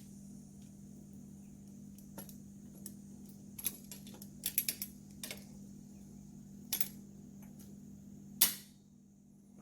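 Scattered metal clicks and clanks as a steel lawnmower blade is set on a channel-iron sharpening jig and clamped down in a bench vise and with vise grips, with a louder sharp snap near the end.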